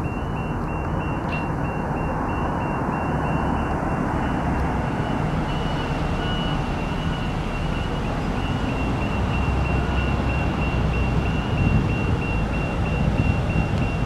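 Level-crossing warning signal sounding rapid, evenly spaced high beeps without a break, over the low rumble of street traffic.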